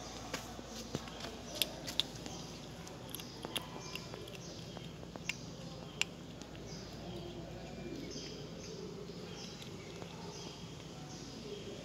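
A kitten chewing fish bones: a series of sharp crunching clicks, several in the first six seconds, then fewer and fainter.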